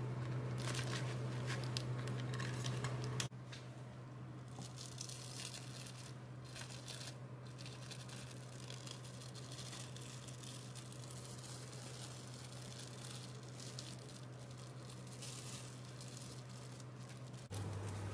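Plastic cling film crinkling and rustling as it is peeled off a set gelatin jelly, over a steady low hum that drops in level about three seconds in.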